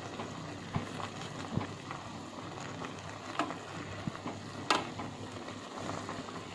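Water boiling in a Korean ramyeon pot on a gas stove, a steady bubbling hiss with a few sharp clicks, the loudest almost five seconds in.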